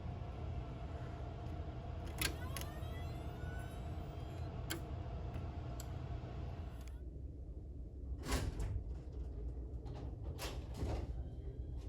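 A faint, distant fire alarm signal: a steady tone with faint rising sweeps that cuts off about seven seconds in. A low steady rumble runs underneath, and there are several sharp knocks and clicks, mostly in the last few seconds.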